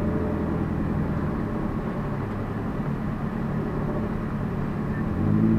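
Low, steady engine and rolling noise heard inside the cabin of a Toyota Prius with its 2ZR-FXE engine, moving at low speed. The hum eases after about a second and swells briefly near the end.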